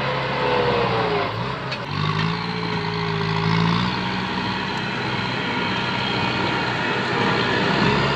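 Kubota farm tractor's diesel engine running under load while pushing through brush. Its pitch dips and shifts about one to two seconds in, then holds steady, with a short sharp snap near two seconds.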